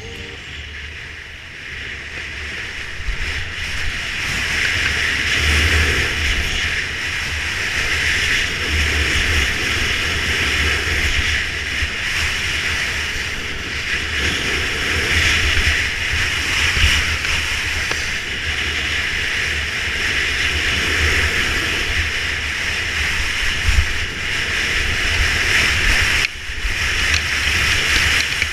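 Wind buffeting the camera's microphone and skis scraping over groomed snow during a fast downhill run, growing louder over the first few seconds as speed builds. Near the end it drops out briefly, then picks up again.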